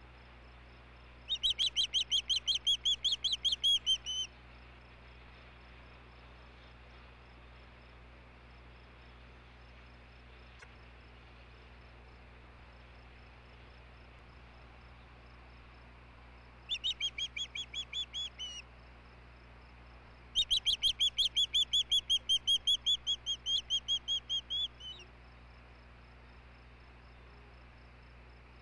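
Osprey calling: three series of rapid, repeated high whistled chirps, the first about a second in, then two more after a long pause, the last and longest running about four seconds.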